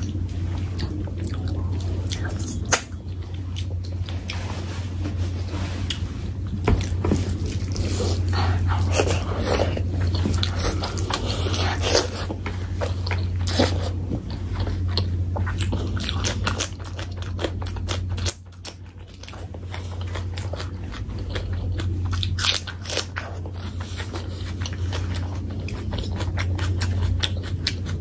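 Close-miked eating of curry and rice by hand: wet chewing with frequent crunchy bites and clicks. A steady low hum runs underneath, dropping out briefly about two thirds of the way through.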